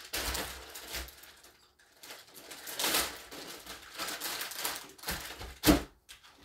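Rustling and handling of cheese packaging in irregular bursts, with one sharp knock a little before the end.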